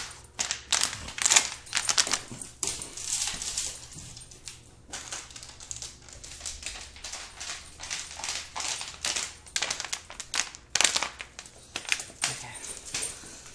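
Puppy's claws clicking and scrabbling on a hardwood floor as he runs about and tugs at a plush toy: irregular quick clicks and scuffs.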